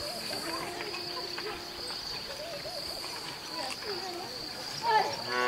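A herd of goats bleating on a rocky slope, with the loudest bleats near the end, over a steady high-pitched insect drone.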